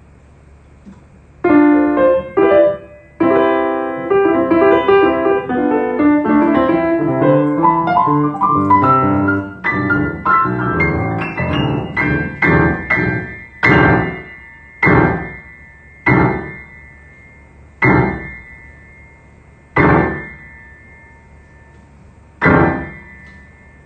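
Piano being played: chords and a run of notes start about a second and a half in, then the playing slows to single chords struck every second or two, each left to ring and fade.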